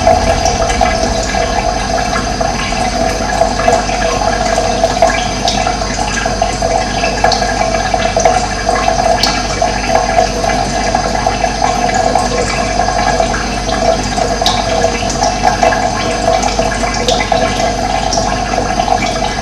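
Steady rush of running water, with occasional short bird chirps high above it.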